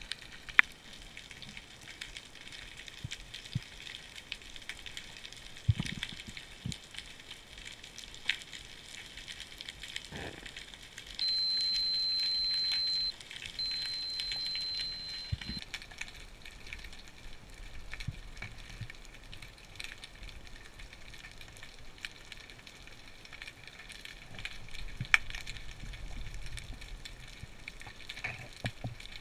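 Underwater background of dense fine clicking and crackle with a few louder knocks, broken by two long high beeps from a dive watch alarm, about eleven and thirteen and a half seconds in, each lasting about two seconds.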